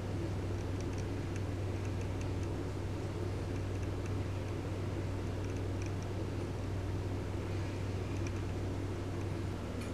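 A steady low hum over a haze of room noise, with a few faint light ticks scattered through it.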